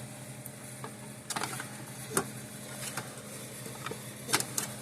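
Scattered light clicks and knocks of a circuit board being angled and pushed into the locating notches inside a Gallagher M1500 fence energizer case, over a faint steady hum.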